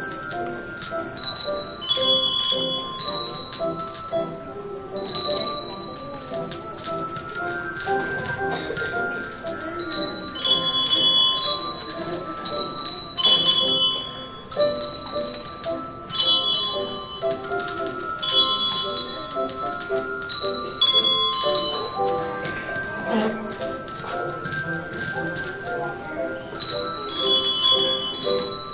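Christmas music carried by a tune of clear, ringing bell notes, with voices underneath.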